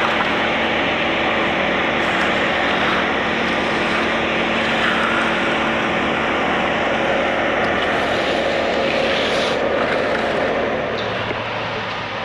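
Concrete pump truck running steadily under load while pumping concrete, a constant diesel engine drone mixed with the pump's noise. The sound eases slightly near the end.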